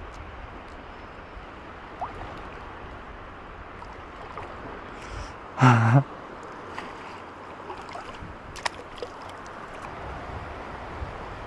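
Steady wash of shallow sea water over a reef flat, with a short, loud hum from a man's voice about halfway through and a few light clicks.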